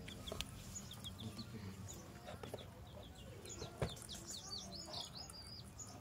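Small birds chirping in short, high calls, scattered at first and coming thick and fast in the last two seconds, with a sharp tap about two-thirds of the way in.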